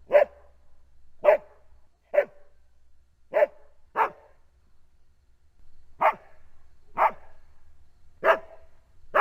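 Border collie barking: short single barks, about nine in all, most about a second apart, with a pause of about two seconds midway.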